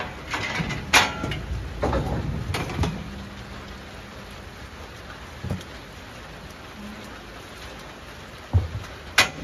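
Rain falling steadily, with several sharp knocks over it, the loudest about a second in and two close together near the end.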